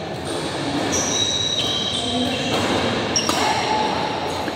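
Badminton doubles rally: high, short shoe squeaks on the synthetic court mat, then sharp racket hits on the shuttlecock a few seconds in and near the end, over a steady background noise.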